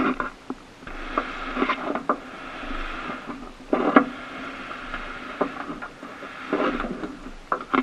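Water lapping and slapping against the aluminum hull of a small jon boat, in irregular splashes about a second long with small knocks between them.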